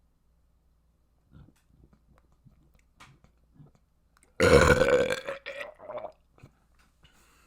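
A person burping: one long, loud, pitched burp about halfway through that breaks off into a couple of shorter burps as it trails away.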